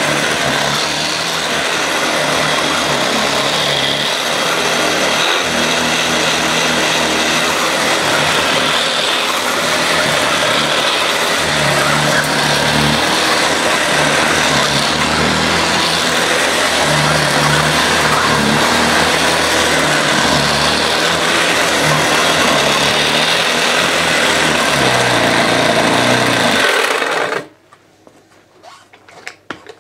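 Hoover Junior 119 upright vacuum cleaner running on carpet, its belt-driven brush roll turning. The sound swells and dips as it is pushed back and forth. Its motor winds down near the end and the sound stops abruptly. The machine is a little bit noisy, and its brush roll bearings are worn out.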